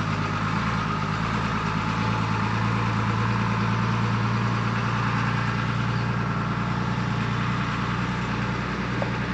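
Diesel engine of a large overlander expedition truck running steadily as the truck drives slowly past on a gravel track.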